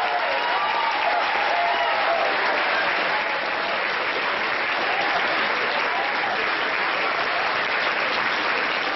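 Audience applauding steadily after a speech, with a few voices calling out over the clapping.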